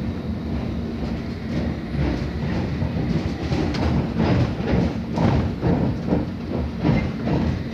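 London Underground S7 Stock train heard from inside the carriage while running along the track: a steady rumble with a faint hum beneath, and wheels clattering in irregular clicks over rail joints and points, busiest in the second half.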